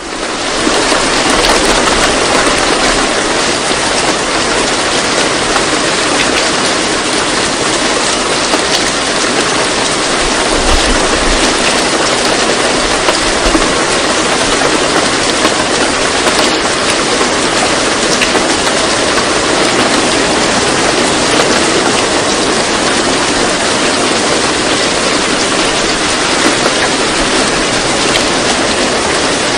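Steady, even rushing noise like heavy rain, with little bass: the masking track of a subliminal audio. It fades in at the very start and then holds unchanged.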